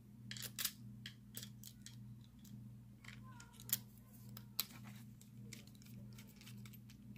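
Light metallic clicks and ticks of steel tools working inside a padlock body as it is reassembled, with a few sharper clicks, over a steady low hum.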